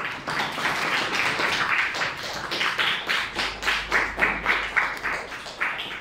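A class of schoolchildren applauding: many hands clapping together in a dense, steady patter.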